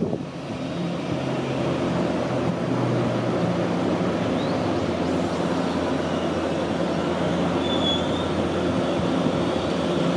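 Nankai Electric Railway commuter train running past close alongside the platform: a steady rumble of wheels on rail with the hum of its electric motors.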